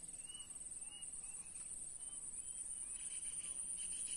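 Insects trilling steadily in a high buzz, with short chirps repeating about once a second. From about three seconds in, a faster pulsing chirp of roughly five pulses a second joins.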